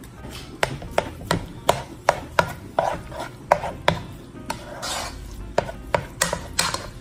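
A utensil knocking and scraping in a cooking pot as ground turkey and seasonings are stirred, with irregular sharp taps about two or three a second.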